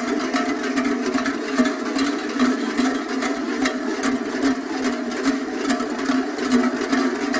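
Many large cowbells clanking without a break, mixed with the din of a dense crowd.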